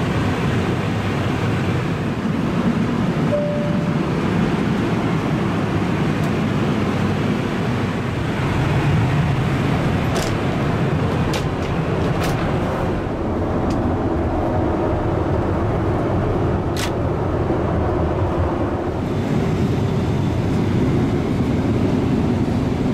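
Steady cabin noise of a Boeing 777-300ER in flight: the even rush of air and engine drone inside the fuselage. A few sharp clicks come midway.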